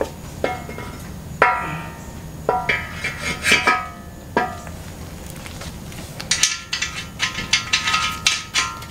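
Metal clinks and taps from fitting nuts and bolts to a BMW E30 lower control arm on the steel front subframe, several of the clinks ringing briefly. A quicker run of clicks fills the last few seconds.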